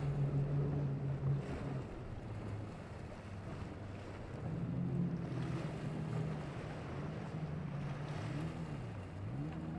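Twin Mercury Racing 400R outboards on a Velocity powerboat running under way with a steady drone. Near the end the engine pitch swings down and back up. Wind buffets the microphone over the wash of water.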